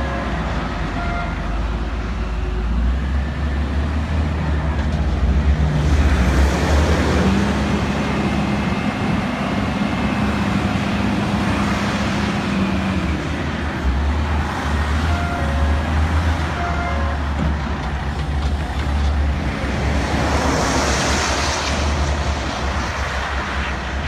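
Heavy diesel earthmoving machinery running under load: a steady low engine rumble with a held hum in the middle and a louder rushing hiss near the end.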